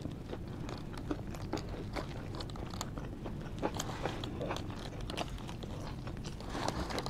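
A person chewing a mouthful of fries close to the microphone, with many small wet mouth clicks and smacks scattered throughout.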